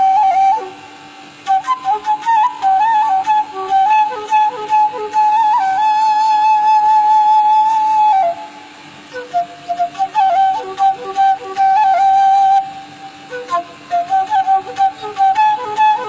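Bamboo flute (seruling) playing a slow, ornamented melody with quick grace-note turns and held notes, in phrases broken by short breath pauses.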